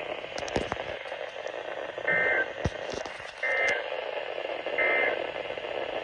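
Uniden WX500 weather radio's speaker sounding the SAME end-of-message code: three short two-tone digital data bursts about one and a half seconds apart, with radio hiss between them. This marks the end of the Emergency Alert System coastal flood warning broadcast.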